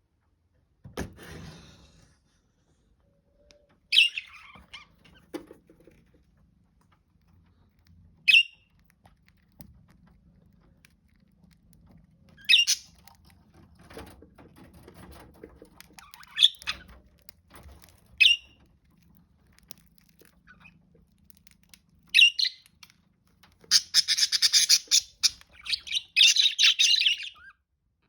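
Parakeets giving short single chirps every few seconds, then a burst of rapid, close-packed chattering calls near the end.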